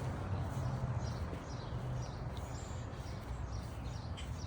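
Several short, high bird chirps scattered over a steady low outdoor rumble.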